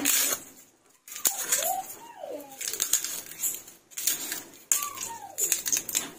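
Dry, papery garlic skin crackling and tearing as fingers break a garlic bulb apart and peel its cloves. It comes in irregular bursts. Twice a falling, whistle-like call sounds in the background, once about a second in and once near the end.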